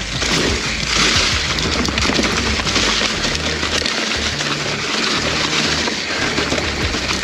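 Mountain bike rolling fast along a dirt singletrack buried in dry fallen leaves: a steady crackling rush of tyres churning through the leaves, with background music carrying a low, stepping bass line underneath.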